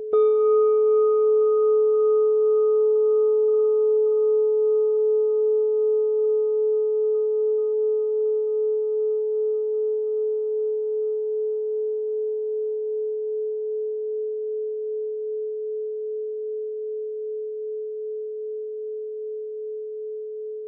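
A Buddhist bowl bell struck once, the bell sounded for zazen. Its bright overtones die away within a few seconds while the low tone rings on, fading slowly with a steady wavering pulse.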